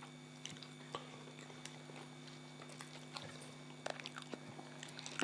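People chewing food, with scattered small clicks and smacks from eating, over a steady low hum.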